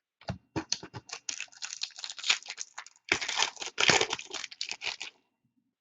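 A hockey card pack's wrapper being torn open and crinkled by hand, a quick run of crackles and rips that is thickest about three to four seconds in.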